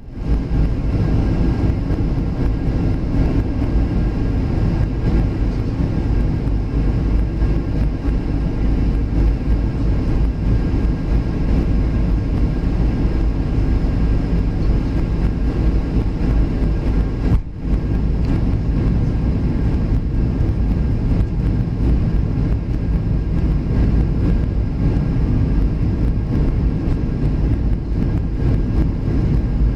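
Cabin noise inside a Boeing 737 airliner on its approach to land: a steady, deep rumble of airflow and jet engines with faint steady whine tones above it. The level dips for a moment a little past halfway.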